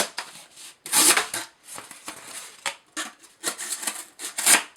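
Emerson Mini Commander's 154CM blade slicing through cardboard in about half a dozen short rasping strokes, cutting easily with little resistance.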